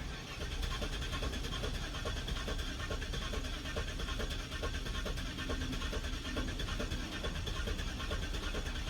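A 4.6 L Northstar V8 cranking over on the starter without catching, with an uneven, sporadic rhythm: sometimes one and sometimes two cylinders are low on compression, which the mechanic puts down to cylinder washout.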